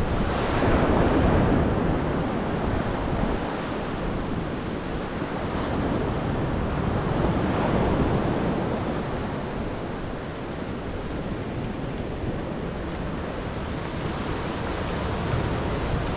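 Heavy, rough surf: waves breaking and washing ashore in swells, louder about a second in and again around eight seconds in, with wind buffeting the microphone.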